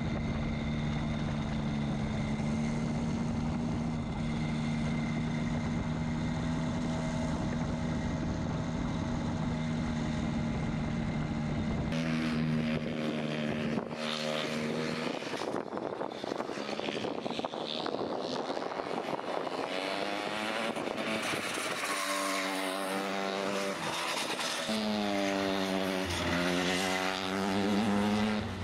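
RENNtech SLR racing kart's engine running at high revs. For about twelve seconds it holds a steady note close up, then it is heard from trackside, its pitch rising and falling repeatedly as it accelerates out of and slows into the corners.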